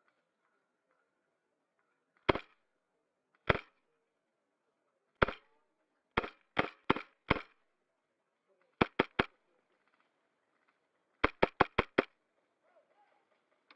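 Airsoft guns firing: a few single shots a second or so apart, then quick strings of three to five shots in rapid succession.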